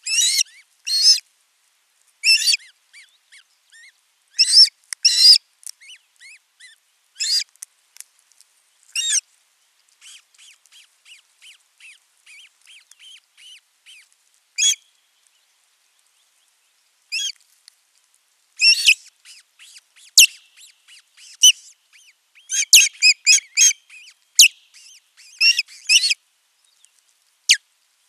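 Ospreys calling: clusters of short, high whistled chirps, repeated in bursts, with a quieter run of quick peeps about ten to fourteen seconds in.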